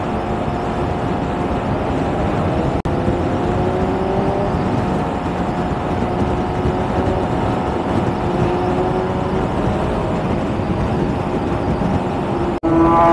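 Motorcycle running at high, steady speed: heavy wind rush over the helmet or bike-mounted microphone, with the engine's steady drone underneath and a brief cut-out near the end.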